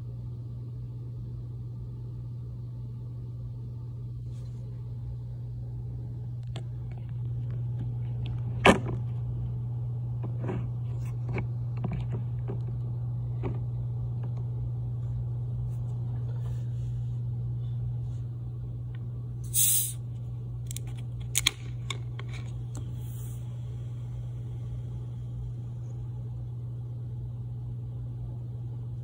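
Steady low hum throughout, with a sharp knock about nine seconds in and a few lighter clicks after it. About twenty seconds in there is a short hiss of carbonation escaping as the Sprite bottle's plastic screw cap is twisted open, followed by two quick clicks.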